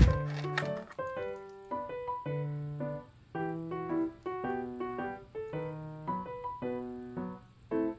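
Background music: a soft piano or keyboard melody in short, evenly paced notes. A few sharp clicks right at the start are the loudest sound.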